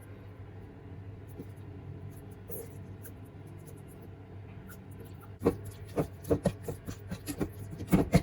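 A steady low hum, then from about five and a half seconds in a rapid series of sharp clicks and knocks from dishes and utensils being handled in a kitchen.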